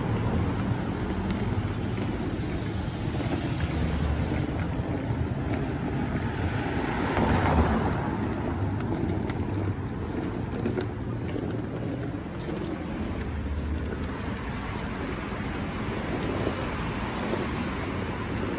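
Street traffic running steadily along a city road, with one vehicle passing louder about seven seconds in.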